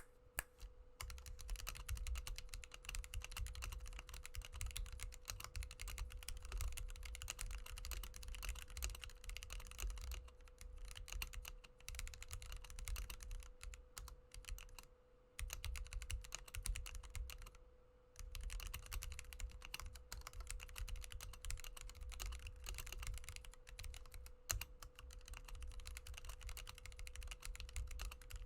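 Typing on a Womier K61 mechanical keyboard with lubed and filmed Gateron Yellow linear switches: a fast, continuous run of keystrokes with brief pauses about 15 and 18 seconds in. A faint steady hum sits underneath.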